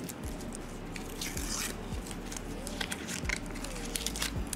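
Paper masking being peeled off a laser-cut acrylic piece and rustled in the hands, in short scattered bursts.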